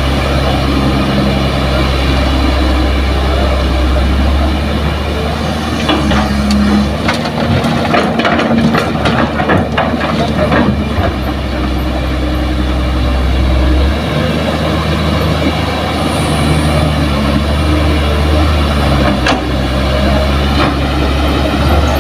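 Diesel engines of a Kobelco hydraulic excavator and a dump truck running steadily, the engine note shifting a few seconds in and again partway through. Around the middle comes a spell of clattering knocks as a bucket of soil and rocks is dropped into the truck's bed.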